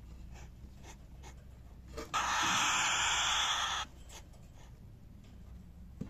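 A pin-feathered cockatiel chick giving one long, harsh hiss of about a second and a half, starting about two seconds in. This is the defensive hiss a nestling makes at an intruder. Faint short breathy sounds come before and after it.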